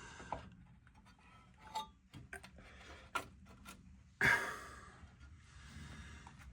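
Scattered small clicks and taps of hand work on a plastic clip and filter housing cover, with a sudden louder scrape or rush about four seconds in that fades over a second.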